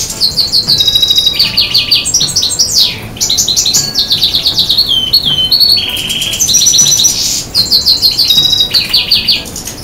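European goldfinch (Balkan subspecies, Carduelis carduelis balcanica) singing a fast twittering song of rapid trills and slurred notes, with brief pauses about three and seven and a half seconds in.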